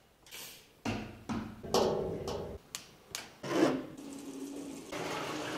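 A string of sharp taps and knocks on hard objects, several with a short ringing tone. From about four seconds in, water runs from a tap into a washbasin with a steady hiss.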